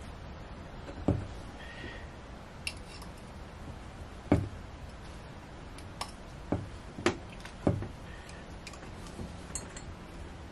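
A few sharp, irregular metal clicks and knocks of a hand tool gripping and pulling on the rubber impeller's fins to work it loose from the raw-water pump housing of a Yanmar 2GM20F marine diesel.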